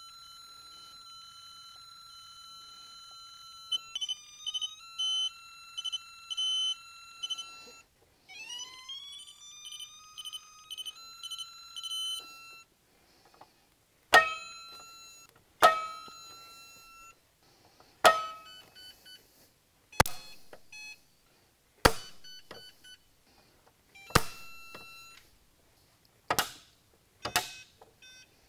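Electronic beeping from a torque-testing setup: a steady tone, then pulsing beeps, then a rising tone. After that comes a run of sharp clicks about every two seconds, each trailed by a short beep: torque screwdrivers clicking over at their set torque on a digital torque tester.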